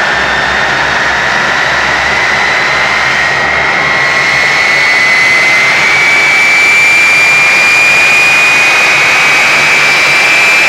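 Orenda Type 14 axial-flow turbojet running on diesel fuel on a test stand and accelerating. A steady roar carries a high whine that climbs slowly in pitch, and the whole sound grows louder about five seconds in.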